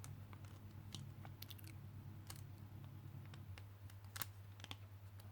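Faint, scattered clicks and taps of small plastic Beyblade parts being handled, over a low steady hum. The clearest click comes a little after four seconds in.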